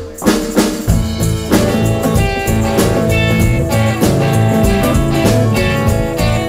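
Live band playing an instrumental passage on guitars and drum kit, with no singing. The music drops out for a split second at the very start, then the full band comes back in on a steady beat.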